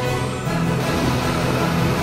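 Dramatic soundtrack music with sustained low notes.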